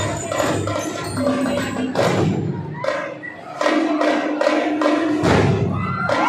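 A children's drum and lyre corps playing: a steady run of drum beats with ringing bell-lyre notes over them.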